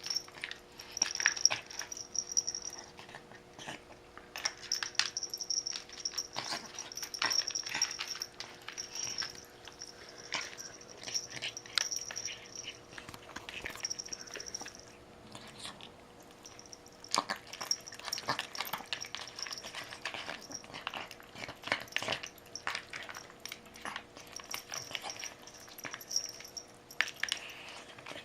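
Dog eating, with irregular wet clicks and smacks of its mouth and jaws. A high thin whine comes and goes through it.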